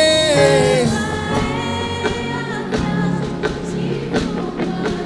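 Live gospel worship music: a singer holds a long note that ends about a second in, and the band plays on with drum strikes at an even beat.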